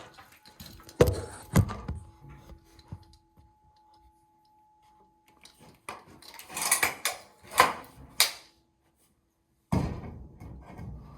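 Knocks and thuds: two sharp knocks about a second in, a cluster of rattling clatter a few seconds later, and a heavy thud near the end that rings on briefly.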